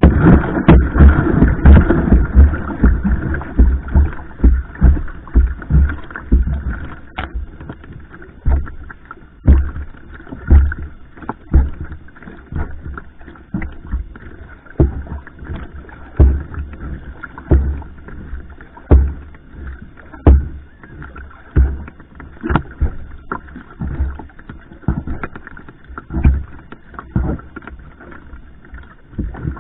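Paddle strokes of a va'a (outrigger canoe): the blade catches and pulls through the water in a steady rhythm over a constant rush of water. For about the first six seconds the strokes come quick and dense, the sprint of a racing start, then they settle to about one stroke every second and a bit.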